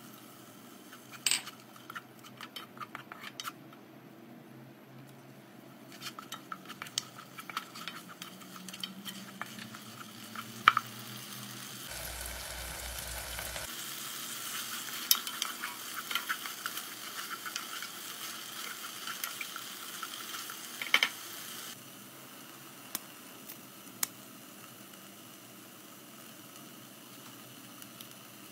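Wooden spoon stirring and scraping thick chilli sambal in a non-stick pot, with irregular knocks of the spoon against the pot. A steady sizzle comes up partway through and stops abruptly near the end.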